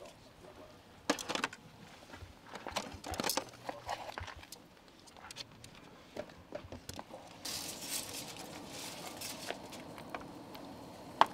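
Serving utensils clicking and tapping against a paper plate and grill pan as hot dogs are dished up, a series of light, irregular clicks and knocks. About seven seconds in a steady soft hiss begins, scrambled eggs sizzling in a frying pan, and a sharp click comes near the end.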